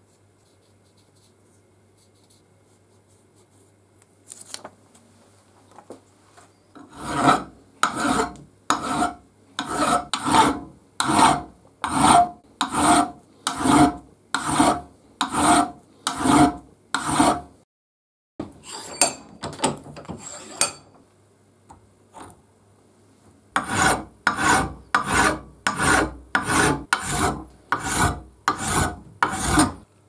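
Hand file (a multifile) filing the flat face of an aluminium block in even back-and-forth strokes. The strokes start about seven seconds in at about one a second, break off for a few seconds of lighter rubbing and a pause, then resume faster, nearly two a second, near the end.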